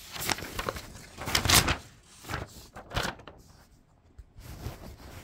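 Sheets of paper rustling and being handled, in irregular bursts, louder about a second and a half in and again about three seconds in.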